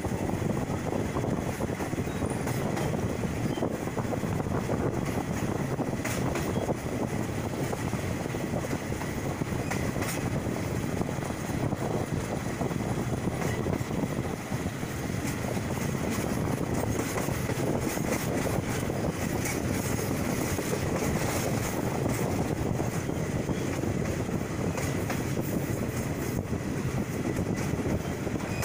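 Passenger train running along the line, heard from an open carriage window: steady running noise of steel wheels on the rails.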